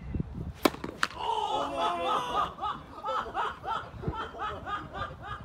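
Tennis racquet smacking a tennis ball, with a second sharp smack a moment later. Then people break into quick, rhythmic laughter that runs on.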